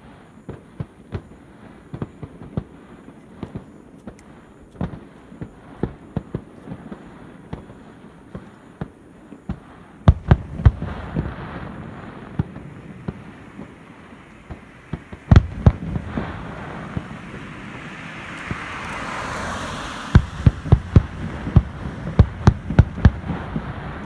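Fireworks display: shells bursting in scattered bangs, with louder volleys about ten and fifteen seconds in. A hissing crackle swells shortly before a quick run of loud bangs near the end.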